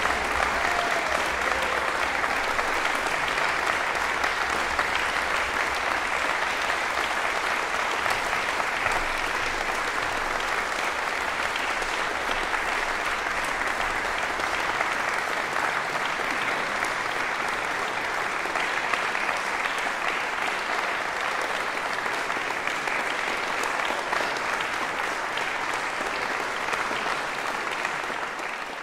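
Steady applause in a concert hall, from the audience and from orchestra players on stage, beginning to fade at the very end.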